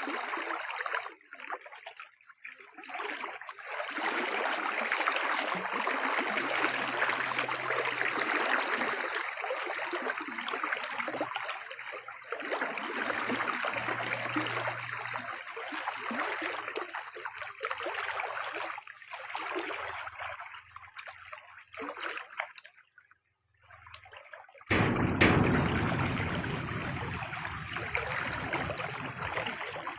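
Water running and trickling, with splashing, uneven in strength. It fades briefly, then comes back louder and fuller for the last few seconds.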